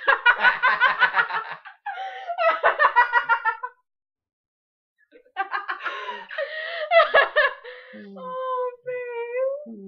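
A small group of people laughing hard together in rapid bursts; it drops to silence for about a second and a half midway, then the laughter starts up again and trails into a few drawn-out vocal sounds near the end.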